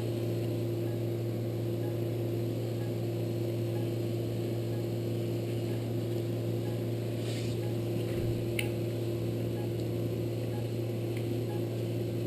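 Steady electrical equipment hum with a low and a middle tone, and a few faint clicks in the second half.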